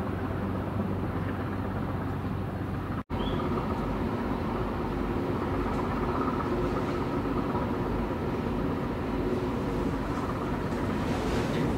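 Steady low diesel drone of a harbour tugboat running under way. It cuts out for an instant about three seconds in, then carries on.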